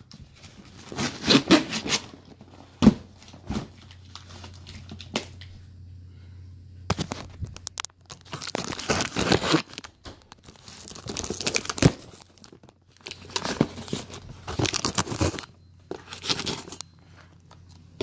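Cardboard shipping box and plastic wrapping being torn and crinkled open by hand, in irregular bursts of ripping and rustling, with a sharp snap about three seconds in.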